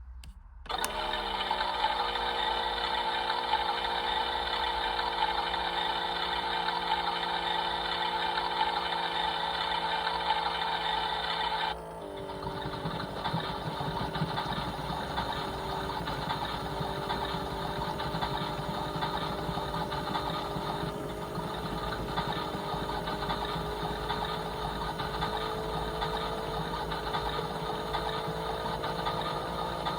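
Small electric motor of a toy washing machine starting up and running steadily, its pitch settling just after it starts; about twelve seconds in its sound drops slightly and shifts in pitch, then it runs on steadily.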